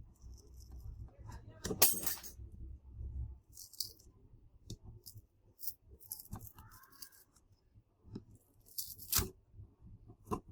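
Tools or fingers working at the back cover of a small power bank's casing to pry it off: scattered clicks and short scraping rasps. The loudest comes about two seconds in and another about nine seconds in.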